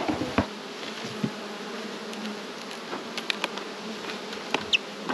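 Honeybees buzzing in a steady hum around an open hive, with a few short, light knocks and clicks scattered through.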